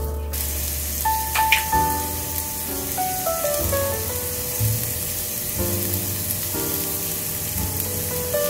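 Carrot sticks frying in oil in a stainless steel pan with a steady sizzle, under light background music.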